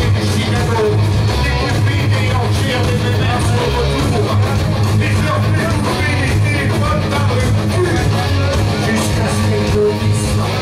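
A live rock band playing loudly: electric guitars over bass and a drum kit, in a continuous full-band passage.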